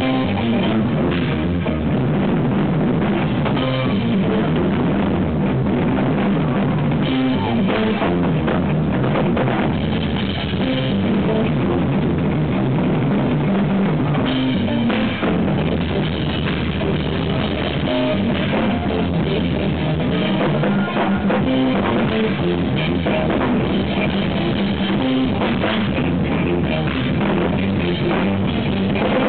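Live instrumental jazz-rock fusion band playing: electric guitar, electric bass and drum kit together at a steady, loud level. The recording is overdriven.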